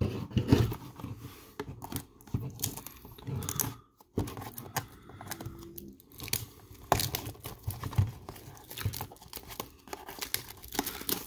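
Plastic shrink wrap on a cardboard trading-card box being slit with a folding pocketknife and peeled away, crinkling and tearing in irregular crackles, with a short pause about four seconds in.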